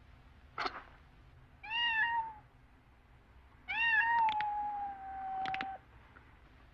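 Cat meowing twice: a short meow, then a longer one that slowly falls in pitch and trails off, with a few sharp clicks around them.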